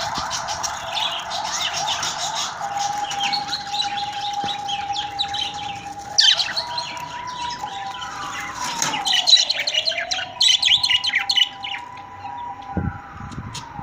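A flock of budgerigars chirping and chattering rapidly, with bursts of louder chatter. Under it a steady tone sweeps down and back up twice, like a distant siren.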